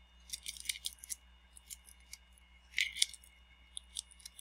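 Light, scattered clicks and ticks of small parts and a hand tool being worked against an opened iPad's housing, clustered about half a second in and again near three seconds, over a faint steady hum.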